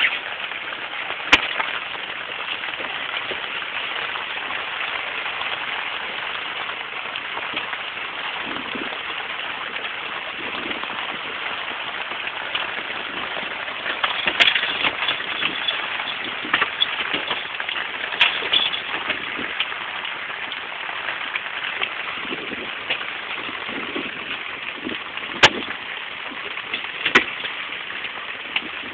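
Steady hiss of rain falling on a boat and on rain gear, broken by a few sharp knocks, two of them near the end.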